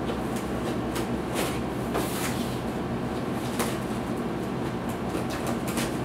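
Scissors slitting and scraping along packing tape on a cardboard box: a string of short rasps and snips at uneven intervals, over a steady low background hum.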